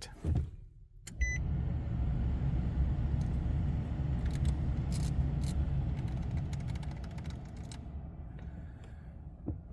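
A click and a short electronic beep as the 2019 Nissan Titan's push-button start is pressed, with no cranking: the no-crank fault. Then a steady low rumble for several seconds, slowly fading.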